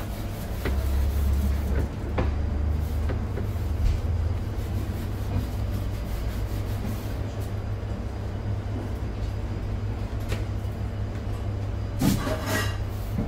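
Steady low machine hum, with a few light clicks and, near the end, a short scrape of a knife spreading paste on bread.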